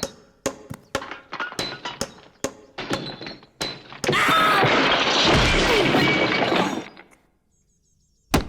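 Cartoon sound effects: a quick run of sharp knocks, like hammering on a roof, then a long crashing and breaking about four seconds in, as of the roof giving way. After a moment of silence comes one sharp thud near the end.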